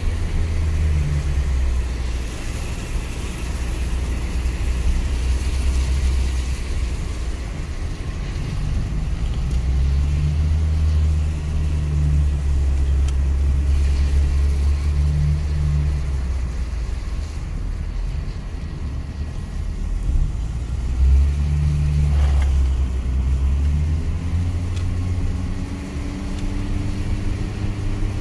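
Car driving on a wet road, heard from inside the cabin: a low drone of engine and tyre noise that swells and eases. Near the end the engine note rises as the car picks up speed.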